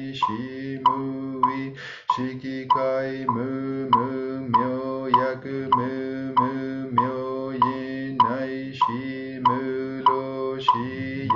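A mantra chanted over a steady low drone, with a light percussive beat about one and a half times a second.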